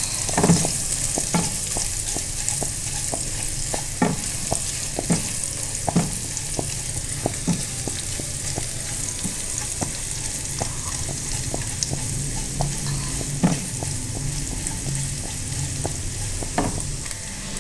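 Carom seeds (ajwain) and garlic paste sizzling in hot oil in a non-stick kadhai, with a steady high hiss, while a silicone spatula stirs them. Small clicks are scattered throughout.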